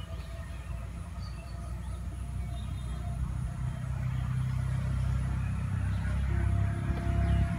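A low rumble that grows steadily louder.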